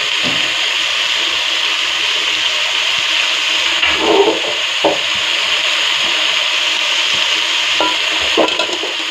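Goat meat sizzling in a metal pot on the stove, a steady hiss, with a few short scrapes and knocks of a spatula against the pot about four seconds in and again near the end.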